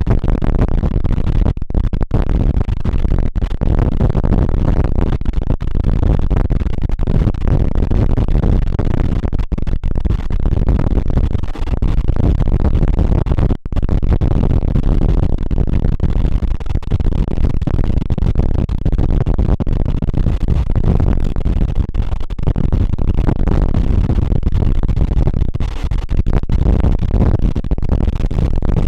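Carriage of a diesel-hauled passenger train running between stations: a loud, steady rumble of wheels on the rails mixed with heavy wind noise, dipping very briefly about halfway through.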